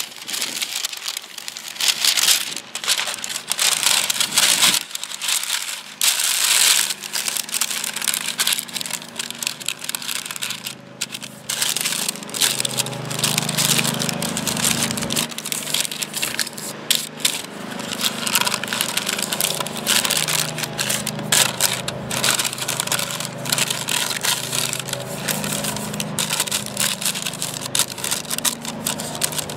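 Parchment paper crinkling and crackling as it is pressed, folded and creased into a cast iron Dutch oven. A low steady drone joins in underneath about twelve seconds in.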